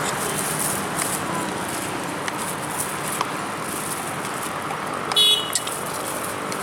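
Steady roadside traffic and street noise, with a short, high-pitched vehicle horn toot about five seconds in.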